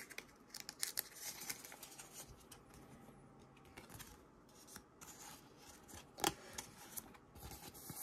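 Plastic card sleeve crinkling and scraping as a trading card is worked into it by hand, in a faint run of small crackles and clicks with one sharp click a little after six seconds in.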